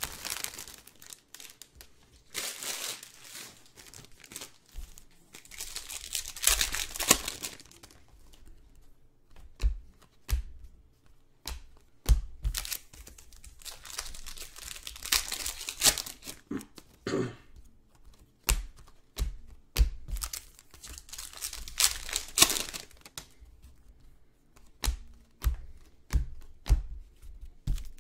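Trading card packs being torn open, their foil wrappers crinkling, in several bursts of a second or two. Between the bursts come many short clicks and light knocks from cards and boxes being handled.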